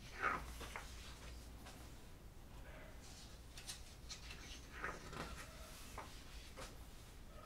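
Pages of a printed catalogue being turned by hand: a few short paper rustles and flaps, the loudest about a quarter-second in.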